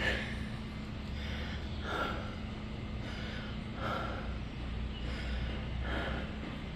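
A man breathing close to the microphone, one breath about every two seconds, over a low steady hum.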